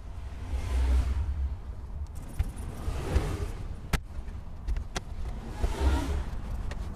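Plastic trim removal tool prying at a headliner retaining clip: scraping and rustling against the headliner, with a few sharp clicks, over a low rumble.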